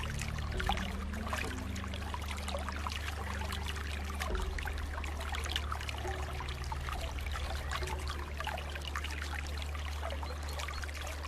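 Running water trickling and splashing continuously, like a small stream, with a steady low hum underneath.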